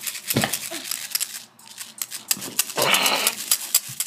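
Rapid, irregular clicking of buttons on a handheld video game device being played, with a short rushing noise about three seconds in.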